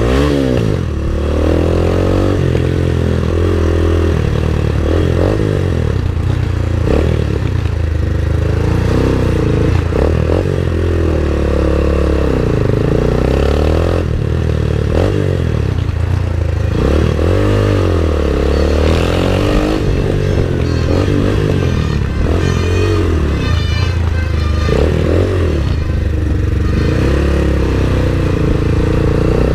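MotorStar Explore 250 v2 motorcycle engine on its stock exhaust, revved again and again over a steady low running note, its pitch sweeping up and falling back every few seconds.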